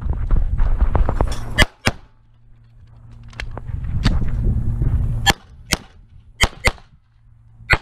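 Semi-automatic pistol shots, mostly in quick pairs: two near the start, two more pairs about two thirds of the way through, and a single shot at the end. Between the pairs there is a low rumbling noise of the shooter moving between positions.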